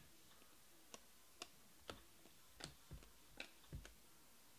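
Faint clicks of glossy chrome trading cards being flipped through by hand, about seven soft ticks at uneven intervals.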